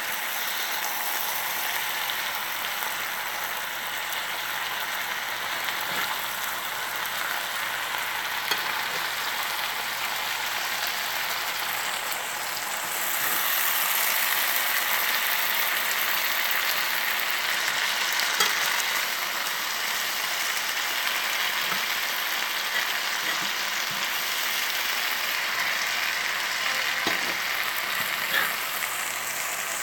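Hash of spinach, potatoes and sausage sizzling steadily in a skillet as the greens cook down. The sizzle grows louder about 13 seconds in, when the pan is stirred, with a few light scrapes from the spatula.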